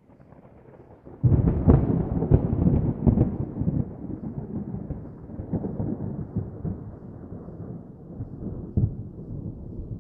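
Distant thunder: a faint rumble swells suddenly about a second in into a loud peal with several sharp cracks, then rolls on and slowly fades, with one more crack near the end.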